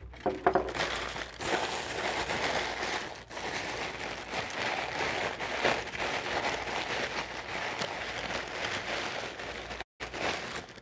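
Sheets of tissue wrapping paper being crumpled and rustled by hand, a continuous crinkling with brief lulls.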